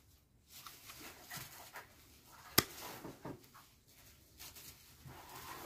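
Faint rustling of dry hydrangea seedling branches being handled, with one sharp click of pruning shears about two and a half seconds in.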